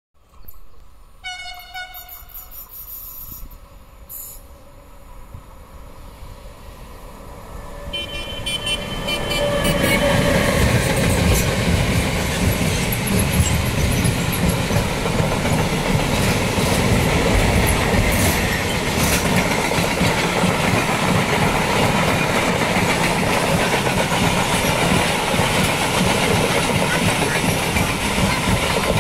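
Freight train's horn sounding twice in greeting, first about a second in and again at about eight seconds as the train nears. Then the train passes close by: a steady loud rumble and clatter of freight wagons over the rails, with a few sharp clicks.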